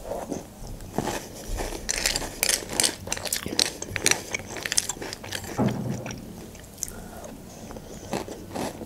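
Crunching and chewing of a mouthful of chocolate cereal balls in milk: crisp crackling bites, densest in the first half, then a new spoonful crunched near the end.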